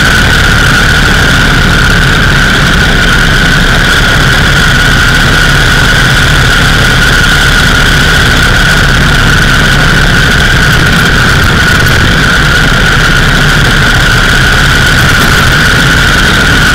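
Indian 101 Scout motorcycle's V-twin engine running at a steady cruise with the rush of road wind, loud and unbroken, heard from a camera mounted on the bike.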